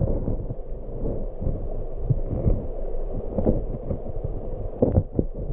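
Muffled low rumbling and irregular dull knocks from a camera held under water in a stream: water moving around and against the waterproof housing. A sharper knock comes a little before the end.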